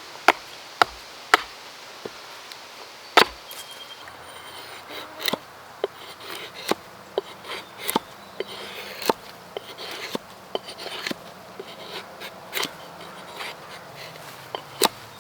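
Hatchet blade striking and carving into wood: several sharp chops in the first few seconds, then many lighter, irregular cuts and scrapes.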